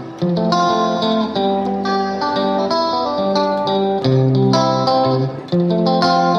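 Background music: a plucked guitar playing a melody.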